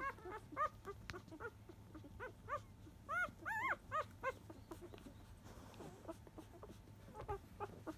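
Five-day-old Labrador retriever puppies squeaking while they nurse: short, high squeaks, each rising and falling in pitch, about three or four a second, thinning out to a few faint ones after about four seconds.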